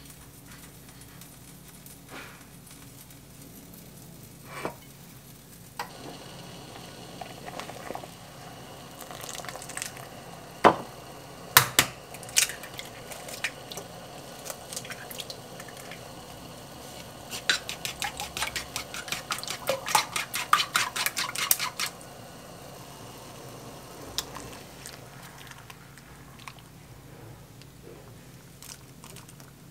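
Eggs cracked on the rim of a wooden bowl, three sharp knocks, then beaten quickly in the bowl with a run of rapid clicking strokes. Water boils softly in a cast-iron pot underneath.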